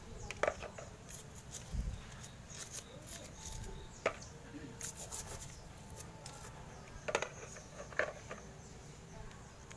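Light clicks, taps and rubbing of small carburetor parts being handled, with a soft low thump about two seconds in.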